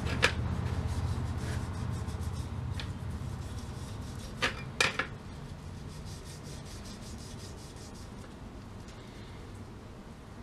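A Scotch-Brite pad rubbing back and forth over a gumball machine part, scrubbing off the old finish loosened by a water-soluble stripper. The scrubbing slowly grows quieter, and there are a few sharp clicks just after the start and two about halfway through.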